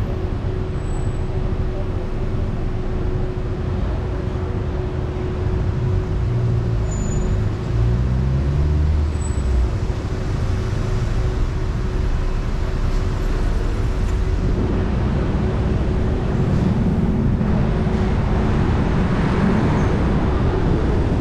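A car driving, with steady engine and road noise and a constant hum. About seven seconds in the engine note climbs as the car picks up speed, and the road noise grows louder toward the end.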